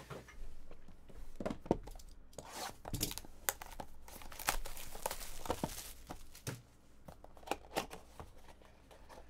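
Plastic wrapper of a trading-card pack being torn open and crinkled by hand, a run of scattered crackles and rustles, busiest about halfway through.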